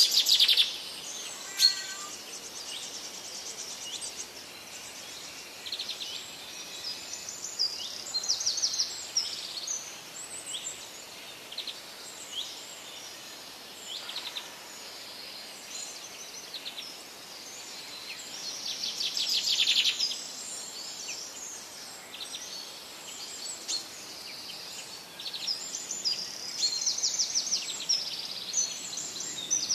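Small birds chirping and trilling over a steady background hiss, with a longer, louder trill about two-thirds of the way through.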